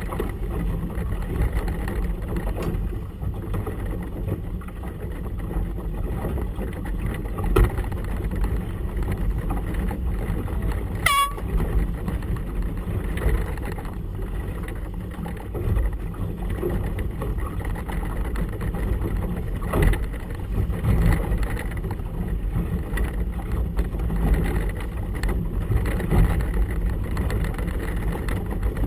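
A motorboat's engine running steadily while under way, under a heavy low rumble of wind and water. About eleven seconds in there is one brief squeal that rises sharply in pitch.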